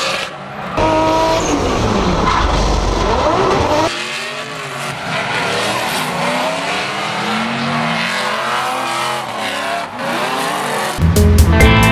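Drift car's engine revving up and down through a slide, with tyre squeal, the engine note rising and falling again and again in the second half.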